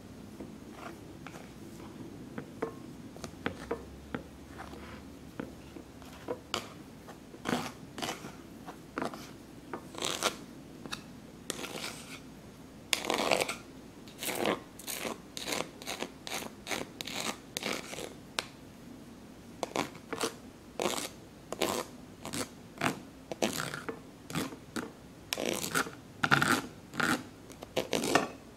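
Wooden spoon scraping and pressing cooked potato through a wire-mesh strainer to mash it: a series of short rasping strokes, few at first and coming faster in the second half.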